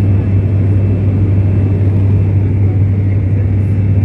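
Steady drone of an ATR 72's turboprop engine and propeller in flight, heard from inside the cabin, with a strong, unchanging low hum.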